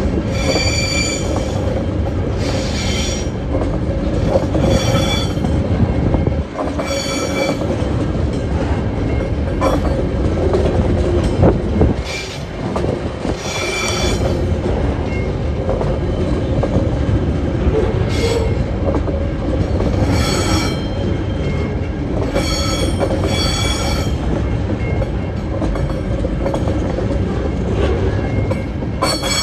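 Freight train rolling past with a steady low rumble, its wheels squealing in short high-pitched bursts every few seconds.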